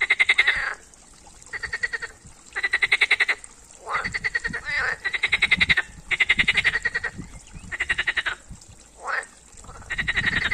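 Green frogs (European water frogs) calling in chorus: a run of rattling croaks, each half a second to a second long and made of rapid pulses, about one a second with short gaps between.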